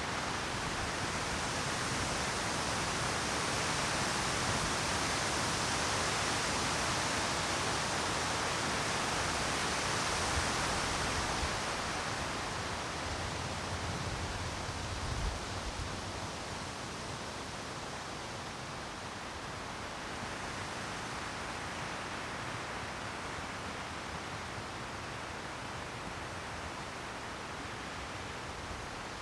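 Wind blowing through a conifer forest: a steady rushing hiss of wind in the trees. It swells in a gust and eases off a little about halfway through.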